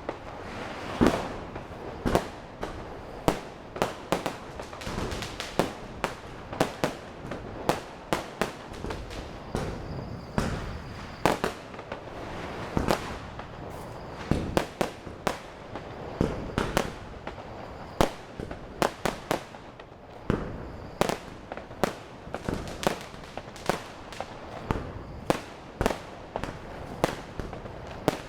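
Diwali fireworks and firecrackers going off all around: many sharp bangs at uneven intervals, several a second at times, over steady crackling.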